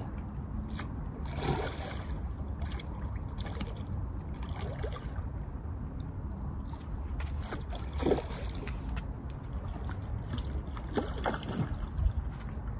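River water sloshing and splashing at the water's edge, four short splashes about every three seconds, over a steady low rumble.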